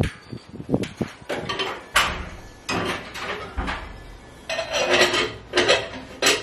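Kitchen clatter: irregular knocks and clinks of pots, cups and cupboard doors being handled, with a busier run of clinking near the end.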